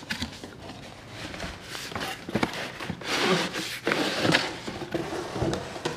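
Cardboard carton rubbing and scraping as it is pulled off a hard plastic tool case, with a few light knocks of the case and box against each other.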